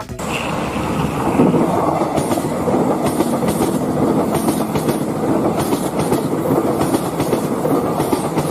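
A machine running with a steady, loud rumble and a rhythmic clatter.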